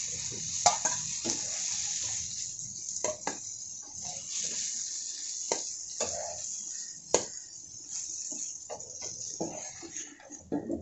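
Tilapia pieces sizzling in oil in a nonstick frying pan, with the hiss thinning toward the end. A wooden spatula scrapes and taps sharply against the pan and a steel bowl several times as the fried fish is lifted out.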